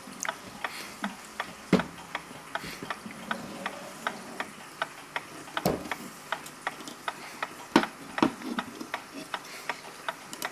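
Vintage pendulum wall clock movement ticking with even, quick ticks, about three a second; the repairer calls its pendulum very jerky. A few louder knocks come as the wooden case is handled and turned over.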